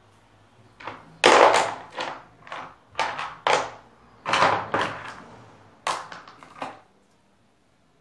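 Pebbles and stones knocking and clattering against each other and the table as they are handled, in a run of separate knocks and short rattles. The loudest come about a second in and near the middle.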